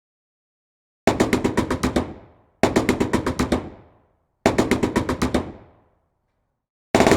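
Machine gun firing in three short bursts of about ten rapid rounds each, every burst trailing off in an echoing tail. A longer sustained burst starts just before the end.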